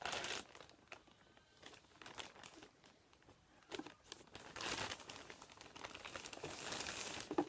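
A paper mailer envelope being cut open with scissors and handled, the paper crinkling and rustling, most strongly at the start and again through the second half.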